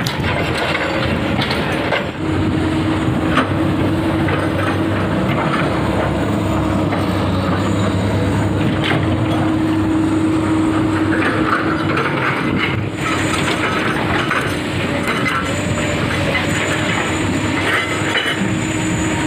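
Excavator's diesel engine running steadily at close range, with a constant low hum and a few short metallic clatters.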